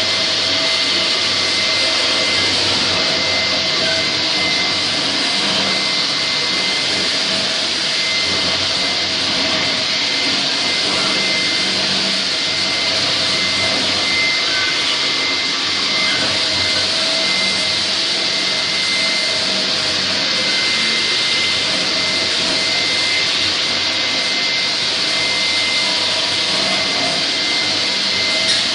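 LINAX electric floor grinder grinding a concrete floor, running steadily together with its attached dust-collector vacuum, with a steady high whine over the grinding noise.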